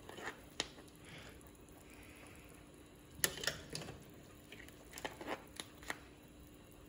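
A plastic slotted spoon stirring in a stainless steel stockpot of seafood boil, making a few light scattered taps and knocks against the pot, over a faint steady hum.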